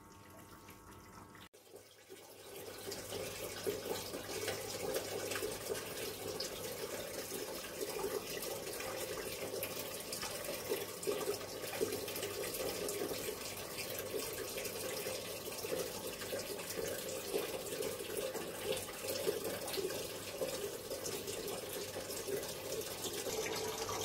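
IFB TL-SDG 9.5 kg Aqua top-load washing machine filling its tub for the rinse: a steady stream of water from the inlet pouring and splashing into the water in the drum, starting after a quiet first second and a half.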